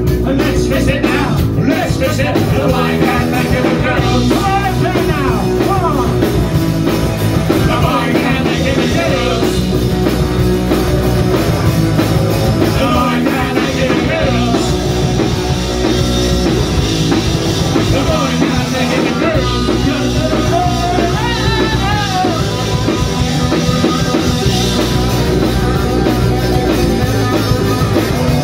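Punk rock band playing live and loud: electric guitars and drums over amplified bass, with no break.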